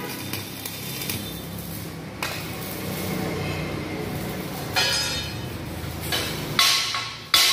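A few sharp metal-on-steel strikes in a metal fabrication shop, each ringing on briefly with a bell-like tone, the loudest near the end, over a steady low machine hum.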